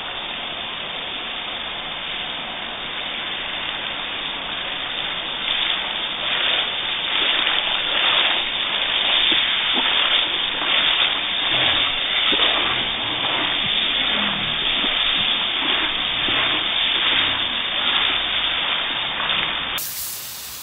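Garden hose spray nozzle hissing steadily as it sprays a fine mist. It grows louder about five seconds in, with uneven splashing as the spray strikes the dog.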